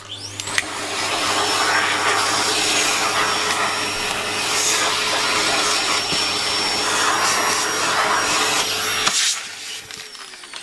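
Vacuum cleaner switched on, its motor whining up to speed within the first second, then running steadily. About nine seconds in it is switched off and the motor winds down.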